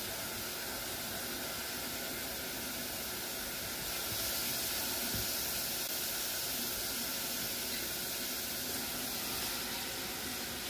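Chopped garlic and onion sizzling in hot oil in a pot, a steady hiss that grows a little louder for a few seconds midway, the pre-frying stage before the rice goes in.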